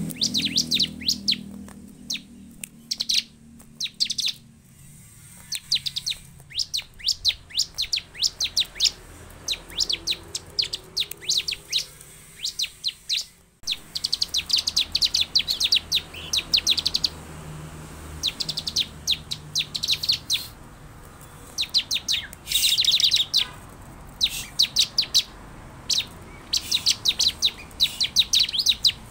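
Bar-winged prinia (ciblek) calling: rapid, dry series of sharp, high notes in repeated bursts of a second or two, with short quieter gaps between them.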